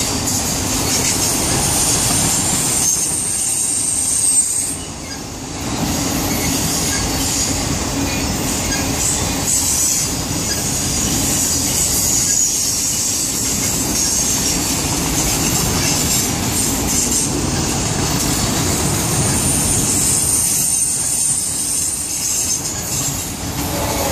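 Freight train of boxcars and autorack cars rolling past close by, a steady rumble of steel wheels on the rails. A thin, high wheel squeal rings out over it for the first few seconds and again a little before the end.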